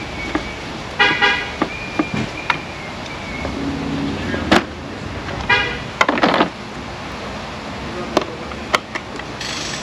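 Hand-tool work on a car's front bumper and grille as its bolts are taken out: scattered sharp clicks and knocks, and two short squeaks, one about a second in and one about five and a half seconds in.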